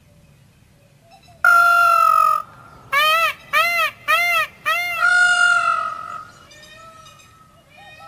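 Indian peafowl (peacock) giving loud calls: one long call, then four short calls in quick succession that each rise and fall, then another long call. Fainter calls follow near the end.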